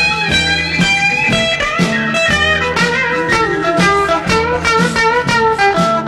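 Background blues-style music led by guitar, with a steady beat.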